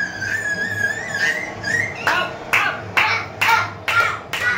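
A long, high-pitched celebratory cry held for about two seconds, followed by rhythmic hand clapping at about two claps a second.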